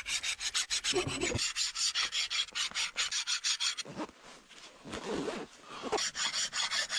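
A hand file rasping back and forth across a forged steel knife blade, stroked in both directions, about four or five strokes a second. The filing breaks off for a couple of seconds about four seconds in, then starts again near the end.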